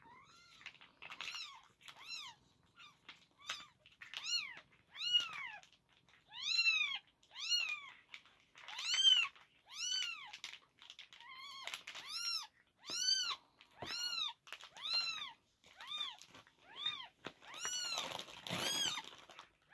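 Newborn Maine Coon × Sphynx kittens mewing over and over: short, high-pitched cries that rise and fall in pitch, about one a second.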